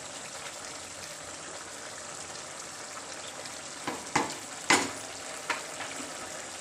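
A spatula stirring thick cowpea curry in a non-stick kadai, over a steady low sizzle from the hot pan. From about four seconds in, the spatula knocks sharply against the pan four times.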